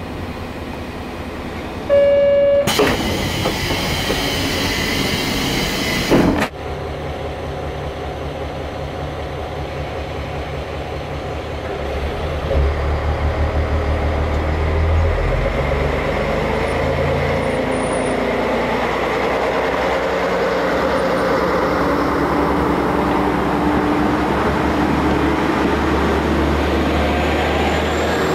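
Diesel railcar standing at a station, engine running. A short electronic tone sounds, then a loud hiss of air as the pneumatic door works, cut off abruptly. The diesel engine then throttles up and the railcar pulls away past the platform, its engine drone swelling.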